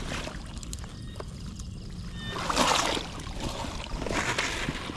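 Water sloshing and splashing in two loud noisy bursts, about two and a half seconds in and again about four seconds in, over a low steady rumble.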